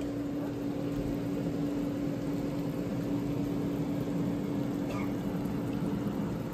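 Steady mechanical hum with a constant low tone from a running kitchen appliance, with a faint tap about five seconds in.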